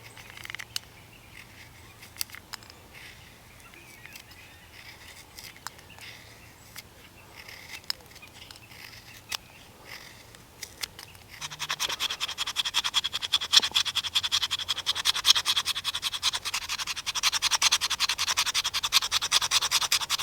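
Knife blade scraping a stick of fatwood into fine shavings. At first there are only a few light clicks, then about halfway through a fast, continuous scraping begins.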